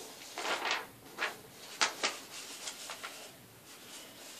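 Paper rustling and crinkling as sheets are handled on a table, in a string of short scrapes with two sharp ticks about two seconds in.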